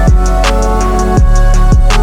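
Background music with a heavy kick drum and a steady beat.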